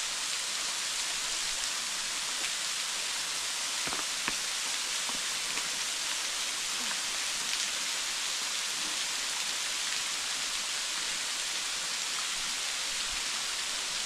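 Thin waterfall spilling down a rock face and spattering on the rocks below: a steady, even hiss of falling water, with a couple of faint ticks about four seconds in.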